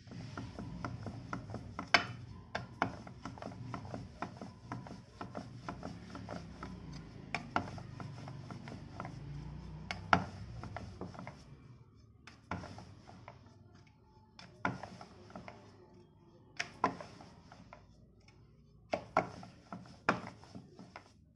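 Wooden rolling pin rolling dough out thin on a metal rolling board: a steady rumble strewn with clicks and knocks for the first half, then only scattered knocks as the strokes thin out.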